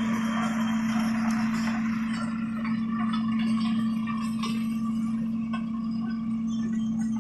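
A heavy vehicle's engine idling with a steady, even hum, with a few faint clicks over it.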